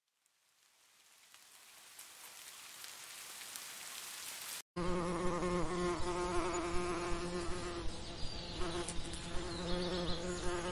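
Bees buzzing around flowers: a steady, wavering drone with small swells in loudness. It cuts in suddenly about five seconds in, after a plain hiss that slowly fades up.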